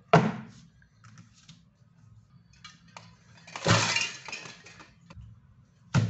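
Hands handling plastic-wrapped board and paper on a tabletop: a sharp knock just after the start, about a second of crisp crackling rustle midway, and another knock near the end.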